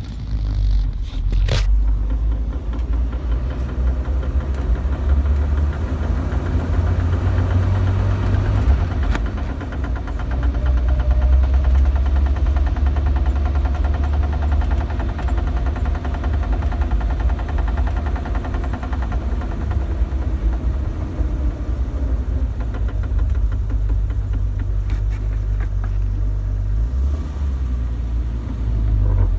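1997 Jeep TJ's 4.0L inline-six running with a repeated clicking over the engine sound, a click that began after the transfer case fluid was changed.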